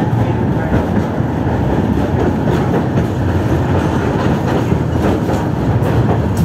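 Tatra T3E tram running along the track, a steady rumble of wheels on the rails with a few light clicks over rail joints.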